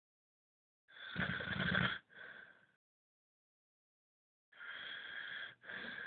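A sleeping person snoring. A loud snore comes about a second in, with a softer breath straight after it, then two quieter breaths near the end.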